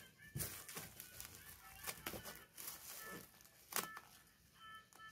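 Bubble wrap and cardboard being cut with scissors and torn open, in irregular snips, rips and crinkles, with one sharper snap about four seconds in.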